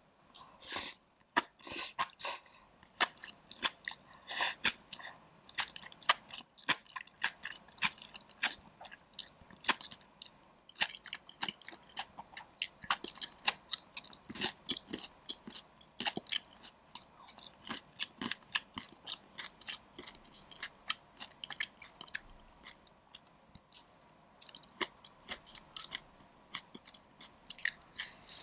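Close-miked chewing of taro soup with chewy taro balls and boba: a steady run of short, wet mouth clicks, louder in the first few seconds.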